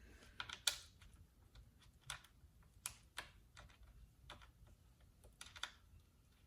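Faint, irregular light clicks and taps of chainsaw parts being handled, plastic cover pieces knocking against the saw.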